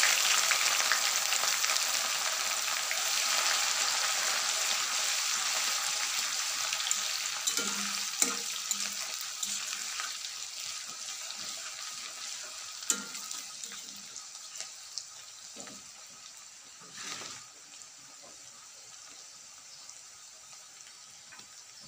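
Crushed garlic and green chilli frying in hot oil in a kadai: a loud sizzle that dies down steadily as the paste cooks. A few clinks of a steel spatula against the pan come through as it is stirred.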